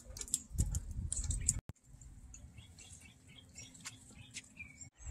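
Rainwater drips falling from above and splashing onto soaked ground and leaves, heard as irregular clicks and pats. After a sudden cut the sound drops to a quieter scene with a few faint high chirps.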